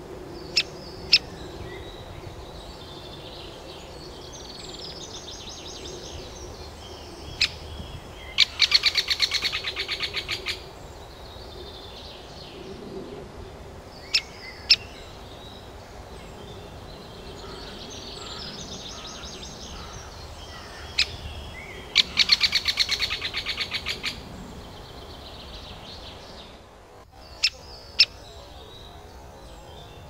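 Great spotted woodpeckers calling at a nest hole: sharp single call notes, several in pairs, and twice a fast chattering run of about two seconds, over a soft steady twittering.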